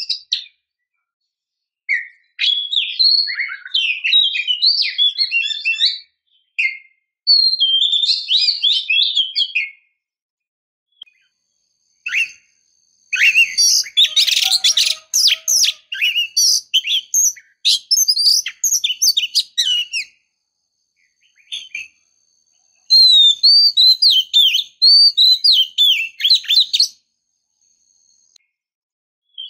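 Oriental magpie-robin (kacer), given as a female in breeding condition calling to a male, singing in bursts of quick, varied whistles and scratchy chattering notes with gaps of a second or two between. The longest and harshest burst comes in the middle.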